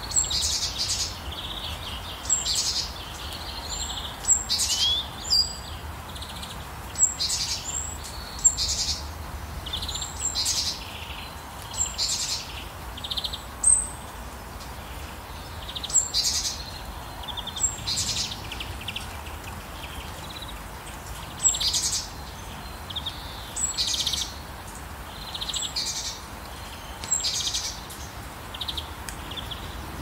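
Birds chirping in short, high, repeated calls every second or two, over a steady hiss of rain.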